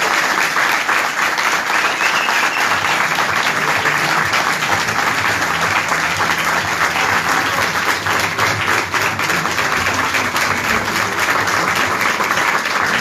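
A small crowd applauding steadily, many hands clapping together without a break.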